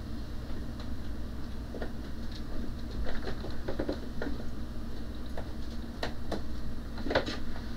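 Scattered light clicks and knocks of hands handling hardware on a pegboard, with a few sharper clicks about six and seven seconds in, over a steady low hum.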